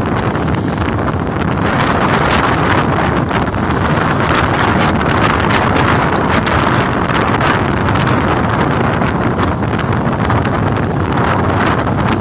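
Strong wind buffeting the microphone on the deck of a sailboat under sail, mixed with the steady rush of water along the hull; it holds steady with small gusts throughout.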